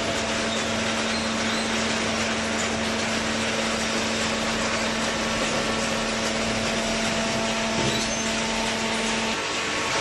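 Hydraulic OCC baler and its feed conveyor running: a steady mechanical whir and hiss with a steady hum that drops out about nine seconds in.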